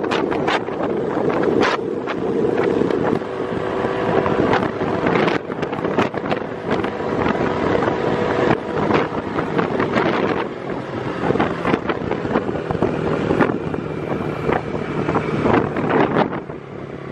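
A motor engine running steadily, with wind buffeting the microphone in frequent irregular gusts.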